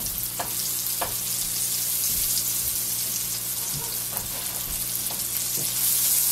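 Russula mushrooms sizzling in butter in a frying pan, with a few short scrapes and taps of a spatula against the pan as they are stirred.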